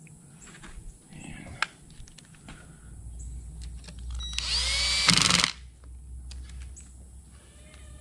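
Ridgid cordless drill spinning up with a rising whine and running a 10 mm bolt into the drive unit housing for about a second, then stopping suddenly. Light clicks of the bolts and tool being handled before it.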